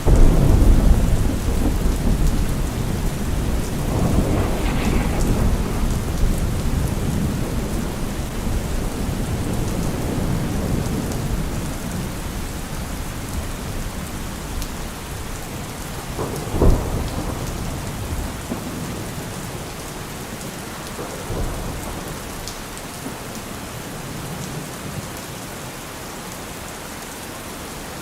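Steady rain with thunder. It opens on a heavy low rumble that slowly fades, a sharp short clap of thunder comes about two-thirds of the way through, and a weaker rumble follows a few seconds later.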